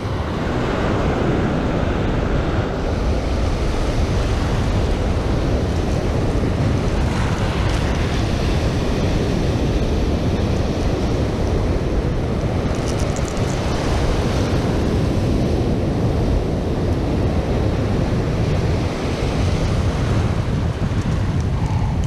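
Small surf waves breaking and washing in foam, with steady wind noise buffeting the microphone.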